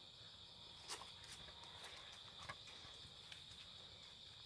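Near silence with the faint, steady high chirring of crickets, and a few soft clicks.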